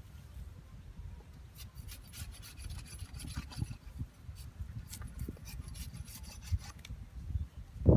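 Small hatchet blade shaving and scraping a peeled wooden stick, a run of short, irregular scraping strokes starting about a second and a half in.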